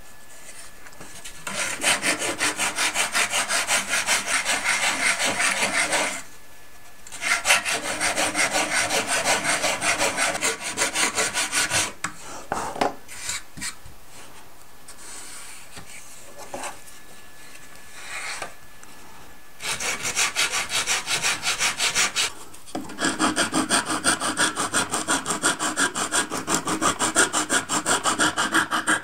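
Sanding block rubbed quickly back and forth along the wooden stringers of a model boat hull, about four strokes a second, in runs of several seconds. There are short pauses, and a quieter, patchier stretch mid-way.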